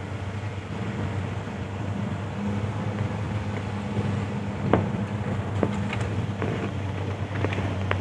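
A vehicle's engine and road noise heard from inside the cab while driving: a steady low hum, with a few sharp knocks and rattles in the second half.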